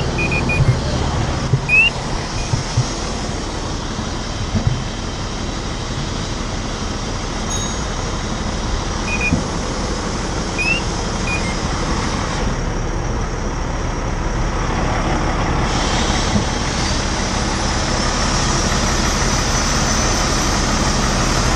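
Fire engine's engine running steadily, heard close by as a low hum under a wash of noise, with a few knocks in the first few seconds.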